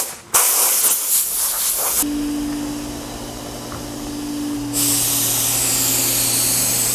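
Short bursts and then a steady blast of compressed air from a handheld blow gun in the first two seconds, followed by a quieter steady hum. Near five seconds in, a loud steady hiss starts: a Fuji Q5 Platinum turbine-fed T75G gravity-feed HVLP spray gun spraying the second coat of lacquer.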